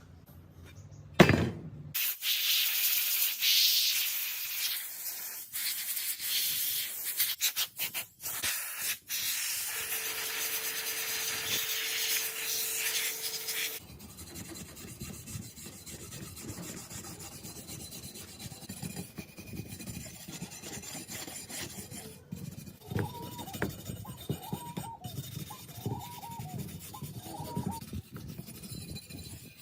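Abrasive rubbing on the old axe being restored: loud, steady hissing friction for about twelve seconds, then quieter repeated rubbing strokes.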